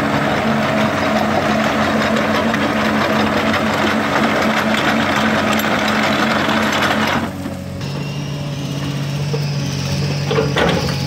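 Excavator-mounted screening bucket running, a dense gritty rattle of sand and grit sifting through its screen over a steady hum. The rattle cuts off suddenly about seven seconds in, leaving the Komatsu excavator's engine running steadily, with a brief clatter of rocks near the end.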